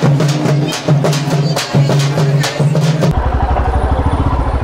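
Hand-held frame drums beaten in a quick, uneven rhythm of sharp strikes. About three seconds in the sound cuts abruptly to a Royal Enfield Himalayan's single-cylinder engine idling with an even, low thudding beat.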